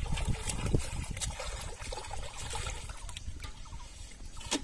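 Water splashing as a hooked fish thrashes at the pond surface, heaviest in the first second or so, then softer trickling and dripping water. A single sharp knock comes near the end.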